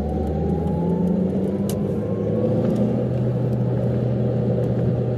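A car's engine and road noise heard from inside the cabin while driving, with a faint whine rising over the first few seconds as the car speeds up and the low engine note stepping up about three seconds in.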